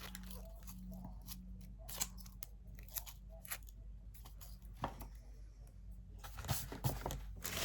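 Packaging and small containers being handled: scattered light clicks, taps and rustles, a little busier near the end.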